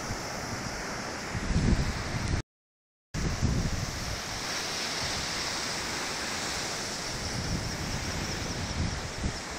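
Rough surf breaking on the shore, a steady wash of noise, with gusts of wind buffeting the microphone. The sound cuts out completely for under a second about two and a half seconds in.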